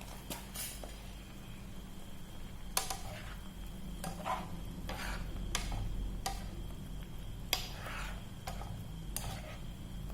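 A utensil knocking and scraping against a cooking pot, roughly a clink a second, over a steady low hum.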